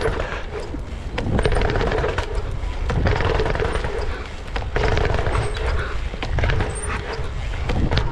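Mountain bike riding down a long stair set, its tyres knocking on the steps in a run of irregular thuds and rattles, with wind rumbling on the microphone.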